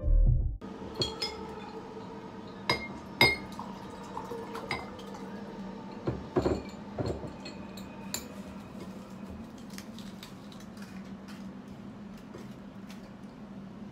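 Glassware and tableware clinking: a glass bottle and drinking glass knocking together and a utensil tapping on a plate, a few sharp clinks at a time. A faint steady hum runs underneath.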